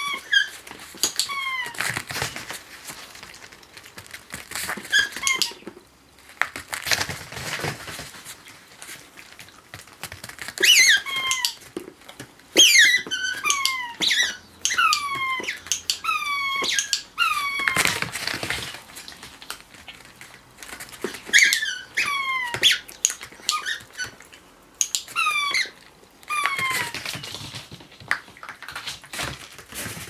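Rubber squeaky smiley-face toy squeaking repeatedly as a dog presses it down with its front paws. The squeaks each slide down in pitch and come in runs of several at a time with short pauses between.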